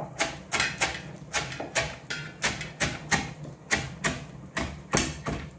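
Cleaver chopping fresh coriander leaves on a plastic cutting board: a steady run of sharp knocks, about three strokes a second.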